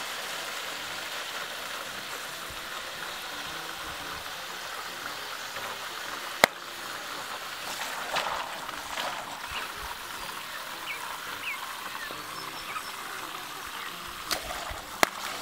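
Water hissing steadily through a Bunch O Balloons filler on a garden hose as its cluster of water balloons fills. A single sharp snap about six and a half seconds in.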